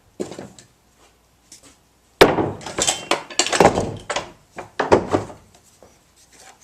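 Steel woodworking hand tools being handled and set down: a short knock near the start, then a sharp clunk about two seconds in followed by about three seconds of irregular knocks and clinks of metal and wood.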